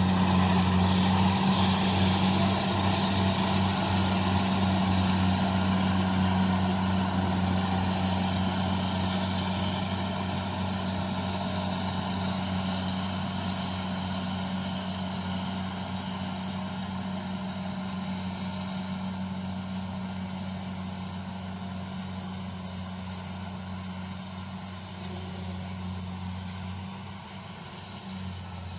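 Kubota combine harvester's diesel engine running steadily as it cuts rice, a constant mechanical drone that grows gradually fainter as the machine moves away.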